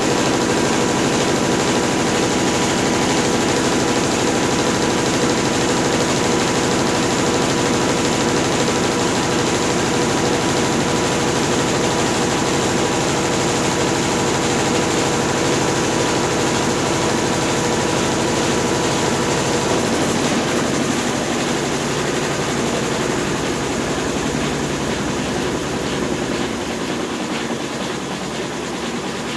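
Consul Facilite 10 kg washing machine running its wash stage: a steady motor hum over the noise of the churning load, getting somewhat quieter in the last several seconds.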